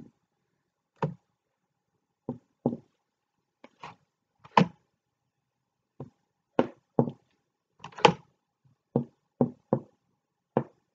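Wooden paintbrush handle tapping against a painting board, dotting on paint: a string of short, irregular knocks, about one to two a second.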